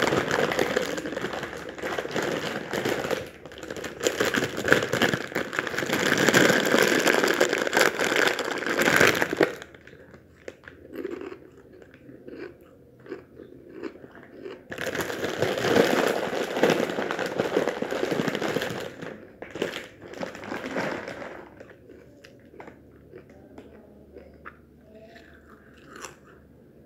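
Plastic snack bags crinkling loudly as they are handled and opened in two long stretches, with quieter spells of crunchy chips being bitten and chewed between and after them.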